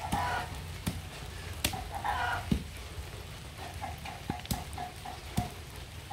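A rock striking the top of a thin stake, driving it into wet soil: a series of sharp knocks at uneven intervals of about a second.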